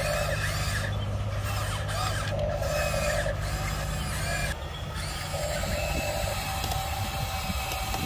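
Electric motors and gearboxes of toy RC excavators whining as the booms and buckets move, in short stretches that start and stop. A low hum under them drops out about halfway through.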